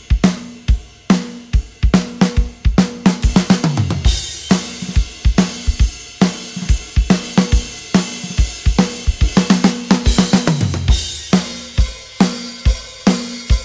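Background music carried by a drum kit playing a steady beat of kick, snare and hi-hat. Twice, a run of falling tom hits leads into a cymbal crash.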